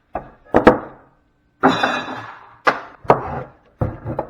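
A series of irregular metal knocks and clunks from fuse parts being handled and set down on a workbench. The loudest, about a second and a half in, rings briefly like struck metal.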